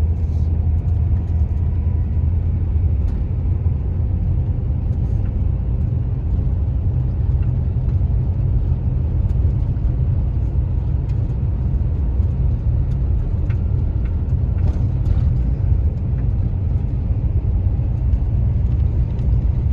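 Van driving at steady speed: a constant low engine and road rumble.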